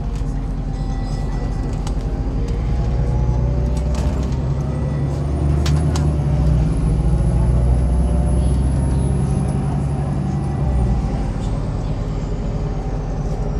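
MAZ-103 city bus driving, its engine pulling harder and louder through the middle and easing off about eleven seconds in. A faint high whine rises, holds and then falls away with it.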